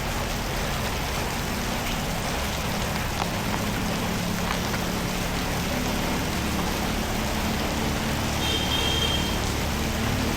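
Steady rush of water on a flooded road, with a faint low engine hum in the background and a short high chirp near the end.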